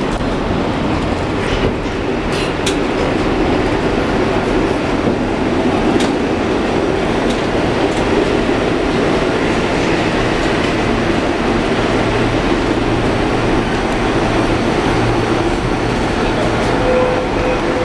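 Opicina tramcar running along its track, heard from inside the driver's cab: a steady rumble of wheels on rail, with a few sharp clicks in the first half and a brief steady tone near the end.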